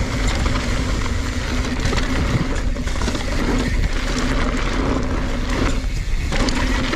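Wind rushing over the camera microphone and the NS Bikes Synonym mountain bike's tyres rumbling on a dirt singletrack at speed, with a steady drone and frequent short clicks and rattles from the bike over bumps.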